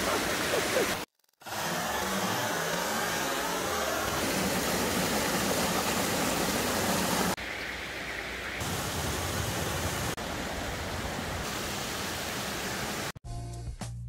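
Shallow creek water running and splashing over rocks: a steady rushing noise, briefly cutting out about a second in and shifting slightly in level a few times. Music with a beat starts near the end.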